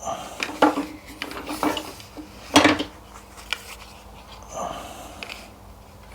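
Tools and small parts being handled on a workbench: a series of sharp knocks and clicks, the loudest about two and a half seconds in.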